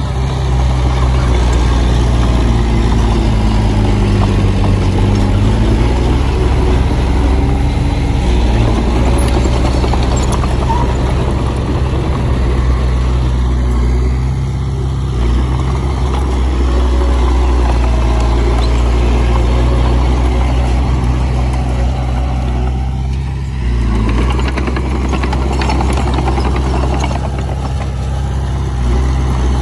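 Komatsu bulldozer's diesel engine running steadily under work, its pitch wavering a little, with a brief dip in level about three-quarters of the way through.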